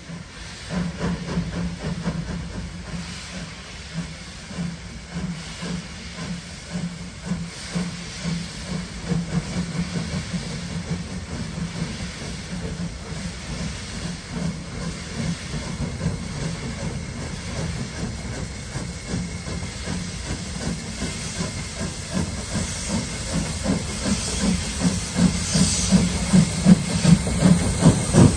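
LNER J27 (NER P3) 0-6-0 steam locomotive 2392 pulling away and drawing closer, its exhaust beats growing louder and more regular, about two a second by the end, over a steady hiss of steam.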